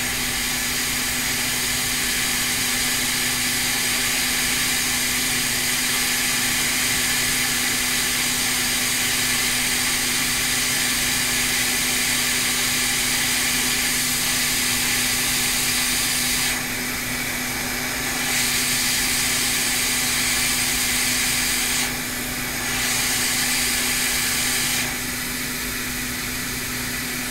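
Hot air rework station blowing a steady hiss, with a low steady hum beneath, as it reflows solder to seat a replacement tantalum capacitor on a logic board. The hiss thins out briefly three times in the second half.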